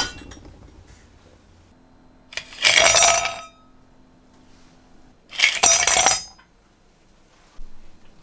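Dishes and glassware clinking and clattering: a sharp clink at the start, then two clattering bursts about a second long each, a few seconds apart.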